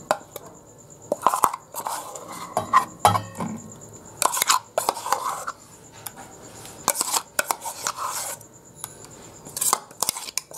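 Metal spoon scraping and clinking against a stainless steel mixer-grinder jar and tiffin box as thick ground mustard-poppy paste is scraped out. It comes in irregular bunches of short clinks and scrapes.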